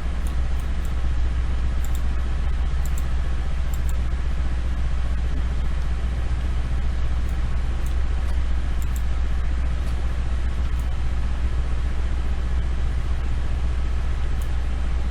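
Steady low hum and rumble of background noise on the recording, with a few faint, short clicks scattered through it.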